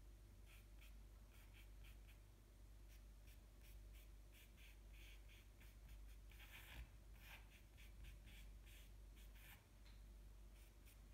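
Faint scratching of a willow charcoal stick on paper in quick short strokes, a few a second, as fine lashes and hairs are drawn. A steady low hum lies underneath.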